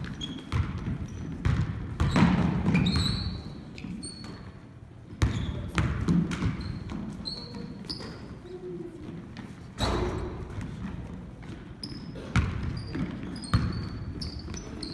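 Basketball bouncing and slapping on a hardwood gym floor at irregular intervals, with sneakers squeaking in short high chirps as players cut and stop on the court.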